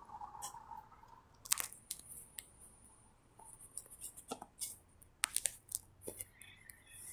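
Faint, scattered clicks and crackles of a phone being handled close to its microphone, fingers shifting on the case as it is held and turned.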